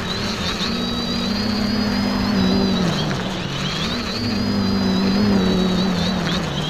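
X550AIOP quadcopter's four motors and propellers whining steadily, heard through the onboard camera's microphone. The pitch sags briefly about three seconds in and again near the end as the throttle eases, then climbs back.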